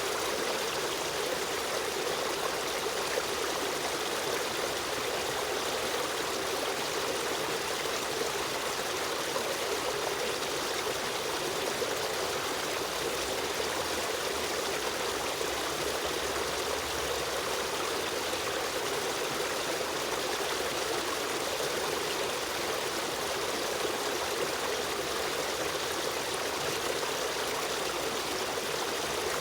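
Stream of running water flowing and trickling steadily, an even rushing sound with no pauses.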